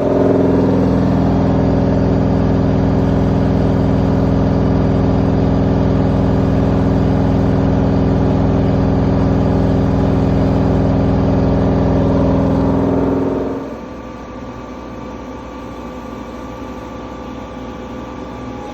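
A CNC machine's motor starts abruptly, runs with a loud, steady hum for about thirteen seconds, then stops, leaving a quieter steady machine hum.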